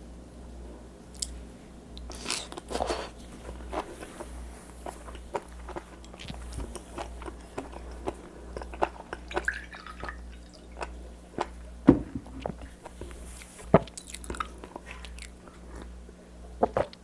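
Close-miked chewing and biting of raw seafood: wet, irregular crunches and mouth clicks, with two sharp snaps about twelve and fourteen seconds in. A steady low hum runs underneath.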